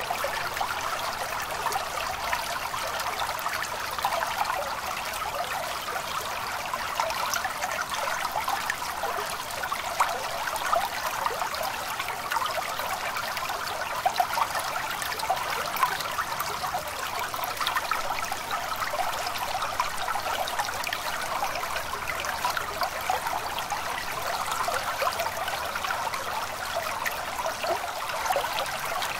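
Small stream trickling and babbling steadily, an even rush of running water with no pauses.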